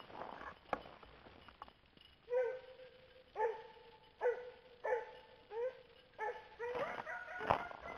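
Coonhound barking in a string of short, repeated barks about one every three-quarters of a second, starting about two seconds in and coming faster near the end: a hound giving tongue while running a track. Crunching footsteps in snow come before the barking.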